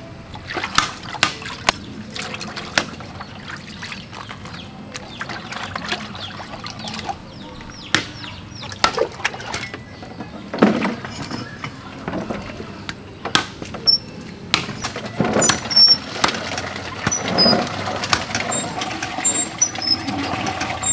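Goat carcass being butchered: irregular sharp knocks and clicks of blade and cleaver work on meat and bone, with splashing liquid. Short high chirps repeat through the second half.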